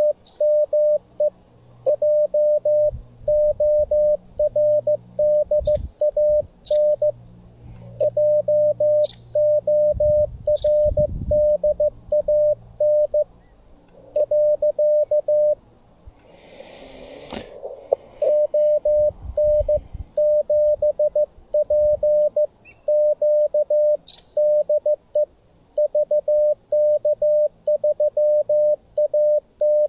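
Morse code from a Xiegu G90 transceiver: a single steady tone of about 600 Hz keyed on and off in dots and dashes. It pauses briefly about two-thirds of the way through, where a short burst of noise is heard.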